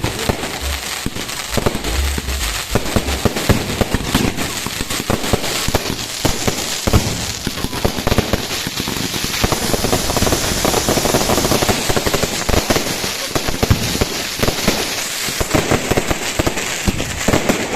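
A fireworks display going off: a rapid, unbroken series of sharp bangs and pops, densely packed throughout.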